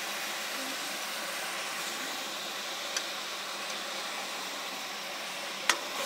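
Chicken pieces sizzling steadily in hot oil in a kadhai on high flame, a continuous hiss while they fry. A metal spatula clicks against the pan about three seconds in and again, louder, near the end.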